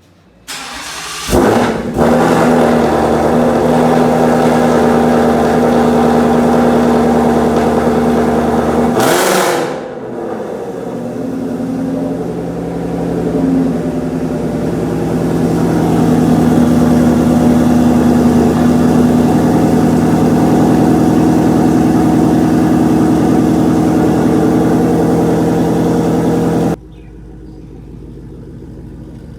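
Ford Mustang GT's V8 starting up and running loud through Stainless Power long-tube headers and a Ford Performance by Borla cat-back exhaust. It flares sharply as it catches, then holds a steady fast idle, dips and changes about nine seconds in, and settles back to a steady run before cutting off abruptly near the end.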